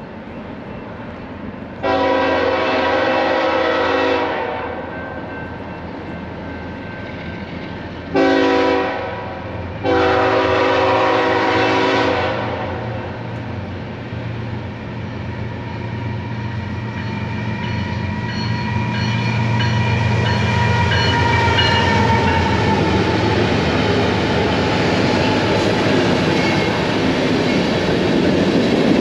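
Freight locomotive air horn sounding three multi-note blasts, long, short, long, as a BNSF manifest freight approaches. Then the diesel locomotives' low rumble builds as they pass, followed by tank cars rolling by with a rising clatter of wheels on the rails.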